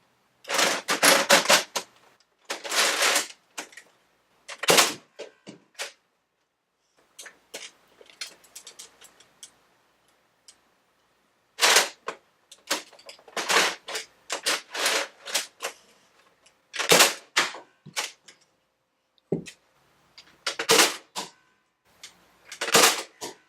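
Nerf Mega Centurion blaster being handled, primed and fired: a series of short clusters of hard plastic clacks and rattles, with a quieter gap in the middle.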